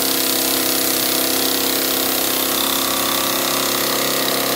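Model Trojan vertical steam engine (Edgar T. Westbury design) running fast and steadily on live steam, an even mechanical hum with a constant hiss of steam.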